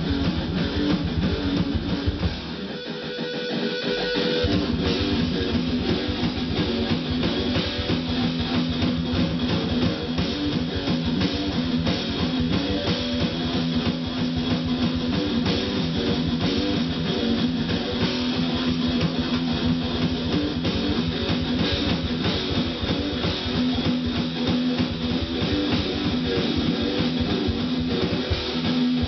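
Live rock jam: electric guitar played through an amplifier over drums from an electronic drum kit. The low end drops away briefly about three seconds in, then the full band comes back in.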